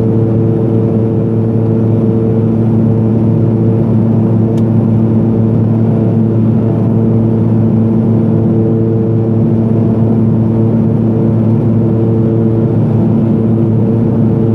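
Cabin drone of a Pilatus PC-12's single PT6A turboprop engine and propeller in flight, heard from inside the cabin: a steady low hum with several constant tones over a noisy rush.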